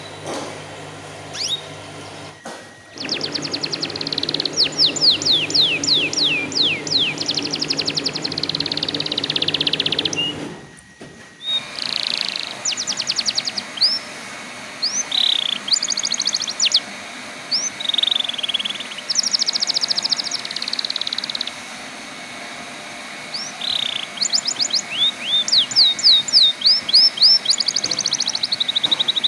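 Domestic canary singing: fast trills of rapidly repeated downward-sweeping whistled notes, in phrases broken by short pauses. The recording cuts abruptly about two and a half and eleven seconds in, and a low hum lies under the song before the second cut.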